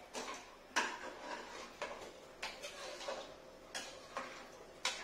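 Metal spoon stirring a thick curry in a pressure-cooker pot, knocking against the pot's metal sides in about eight sharp, unevenly spaced clicks.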